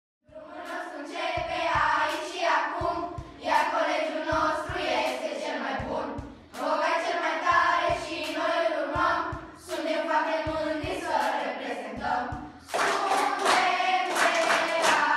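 A group of children singing together in phrases. In the last couple of seconds they clap their hands in rhythm along with the singing.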